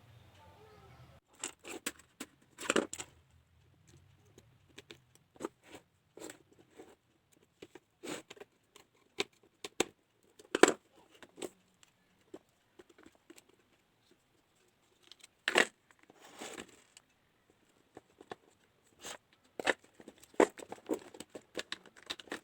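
Scattered clicks, taps and rustles of small parts and tools being handled, coming at uneven intervals with quiet gaps. The sharpest snaps come about ten and about fifteen seconds in.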